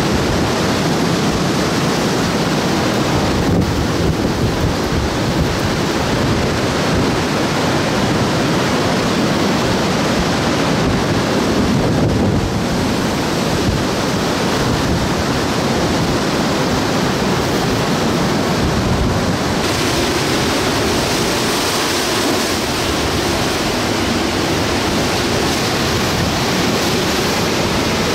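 Hurricane eyewall wind blowing steadily with heavy driving rain, the gusts buffeting the microphone. The high hiss grows stronger about twenty seconds in.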